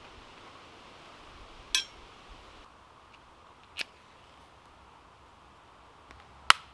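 Three sharp clinks of small hard objects knocked together, a couple of seconds apart, the last one near the end the loudest, over a faint steady hiss.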